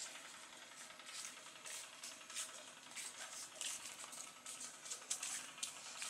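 Faint outdoor ambience: a low hiss with scattered short, high-pitched chirps.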